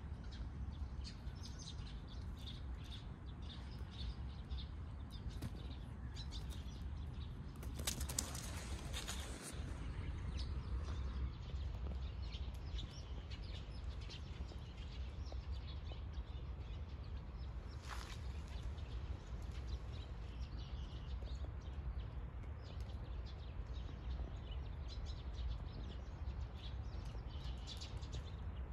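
Outdoor ambience: a steady low rumble with faint, scattered ticks and rustles, and a louder rush of noise about eight seconds in.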